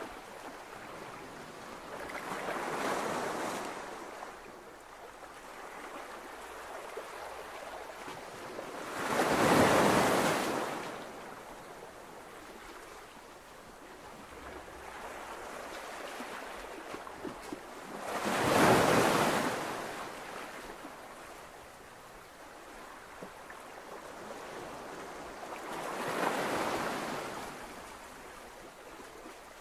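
Ocean surf washing onto a beach: slow swells of wave noise that rise and fall every several seconds, the two loudest about ten and nineteen seconds in.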